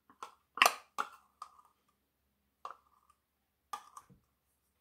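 Small metal measuring spoon clicking and tapping against its containers while salt is measured out by the teaspoon: a run of sharp taps in the first second and a half, some with a brief ring, then single taps about a second apart.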